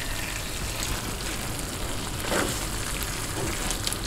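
Bucatini all'amatriciana in tomato sauce sizzling steadily in a frying pan on a gas burner while being stirred with a spoon, with a few light scrapes and clicks.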